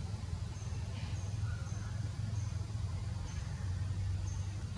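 Outdoor ambience: a steady low rumble with a faint, short, high chirp repeating about six times at uneven intervals.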